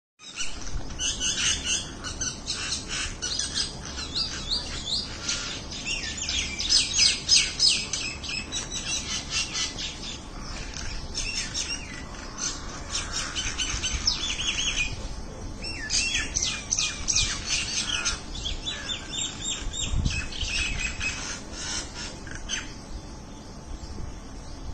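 Many small birds chirping and calling at once, a dense overlapping chatter of quick high chirps. A brief low thump comes about twenty seconds in.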